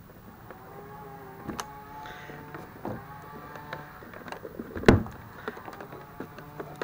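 Handling noise from tucking a cable along a plastic kayak's center console: a few knocks and rubbing sounds, the loudest knock just before five seconds in.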